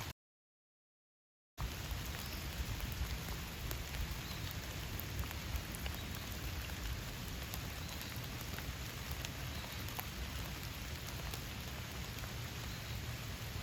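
Steady rainfall with scattered sharp raindrop ticks. The sound drops out to dead silence for about a second and a half near the start, then comes back at the same level.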